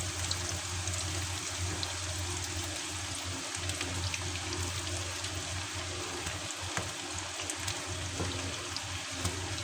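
Battered chicken fingers deep-frying in hot oil in a kadai: a steady sizzle with scattered small crackles.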